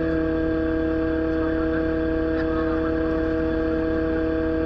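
Excavator's diesel engine and hydraulic pump running at a steady speed: a constant drone with a steady whine over it, unchanging throughout.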